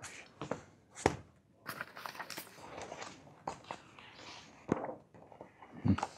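Large paper sheets rustling and flapping as they are turned by hand, with a few sharp taps and a dull thump near the end.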